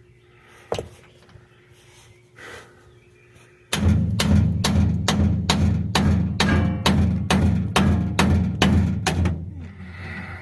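Steel hammer blows on a bearing race driver, seating a new bearing race into a differential housing. One knock about a second in, then a steady run of evenly spaced strikes, about two to three a second, for some five seconds.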